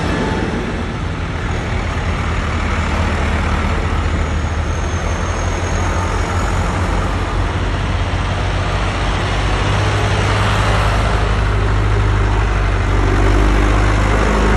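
Diesel farm tractors driving past one after another, their engines making a steady low drone over tyre and road noise. The drone grows louder toward the end as a tractor passes close.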